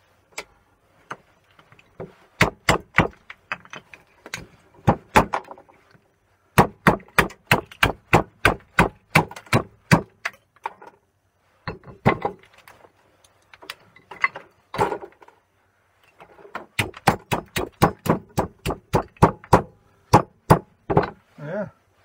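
Quick runs of hammer blows, about three to four a second with short pauses between runs, smashing small burnt-out wooden light fittings on a steel block. The wood and ceramic of the fittings are breaking apart to free their brass parts.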